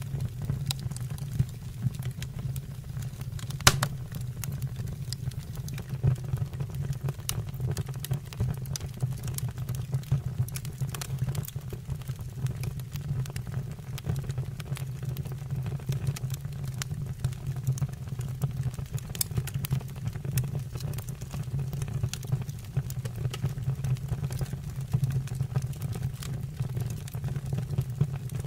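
Fire burning in a fireplace: a steady low rush of flame with frequent irregular crackles and pops, one sharp pop a few seconds in.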